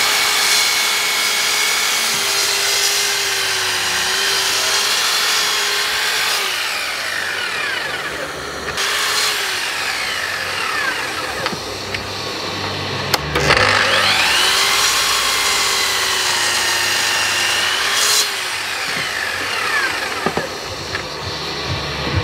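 Festool Kapex KS 120 sliding mitre saw crosscutting an applewood block, twice. The blade is cutting at full speed at the start and winds down about a third of the way in. It spins up again with a rising whine a little past halfway, cuts, and winds down once more near the end.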